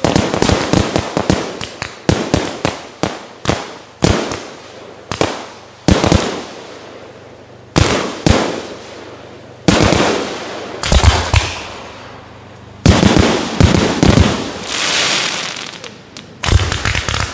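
Aerial consumer fireworks bursting overhead in a rapid run of sharp bangs, several a second at first, then more spaced out. Each bang trails off into hissing and crackling.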